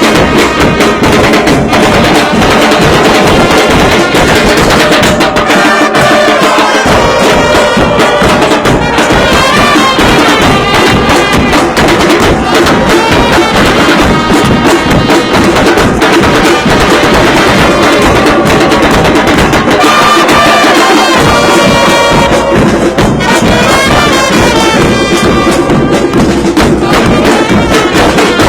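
A football supporters' band playing loud trumpets and other brass over steady drumming.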